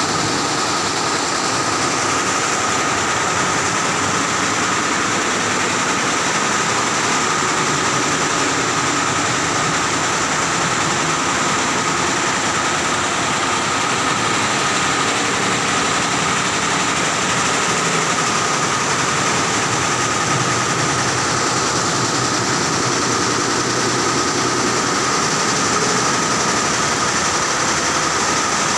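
Multi-head industrial embroidery machinery running: a steady, dense mechanical clatter and hum with a constant high whine over it.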